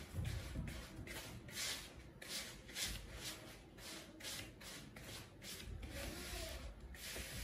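A hand rubbing and working grainy semolina mixed with oil in a plastic bowl: a rhythmic rasping at about three strokes a second.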